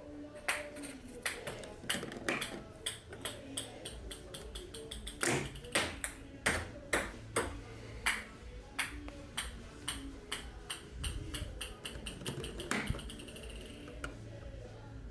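An irregular series of sharp, short-ringing clicks and taps of hard plastic, about two a second, as the 3D-printed plastic catapult parts are handled.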